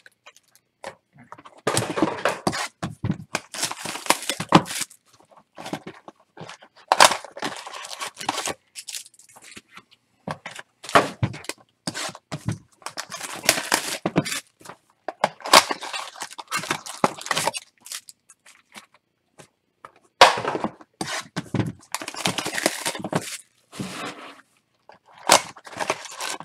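Plastic wrap and cardboard packaging being torn and crinkled while sealed boxes of baseball trading cards are unwrapped and opened. The sound comes in irregular bursts with short pauses, with a few sharp cracks among them.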